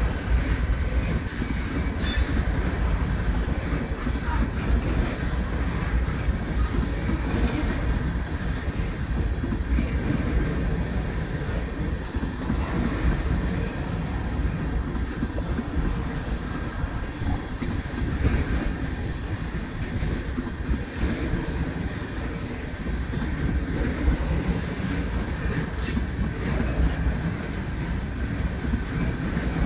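Tank cars of a long freight train rolling past: a steady low rumble of steel wheels on rail, with thin steady high whining tones over it. Two brief sharp high sounds stand out, about two seconds in and a few seconds before the end.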